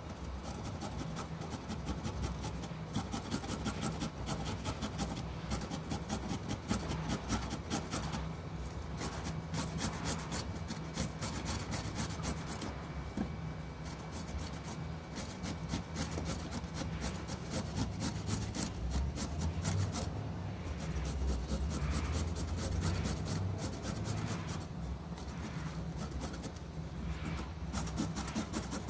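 A carrot being grated on a flat stainless-steel hand grater, in quick repeated strokes with a few short pauses.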